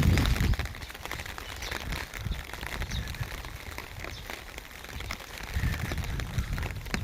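Raindrops striking an umbrella overhead: many irregular sharp taps. A low rumble fades out in the first half second and swells again about five and a half seconds in.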